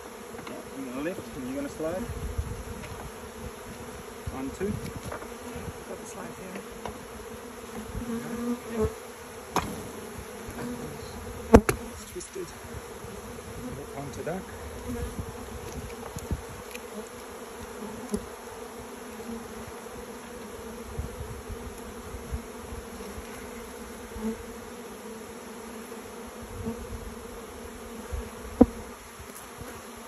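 Dense buzzing of a cloud of honeybees flying around opened hive boxes, a steady hum throughout. A few sharp knocks break through, the loudest about a third of the way in.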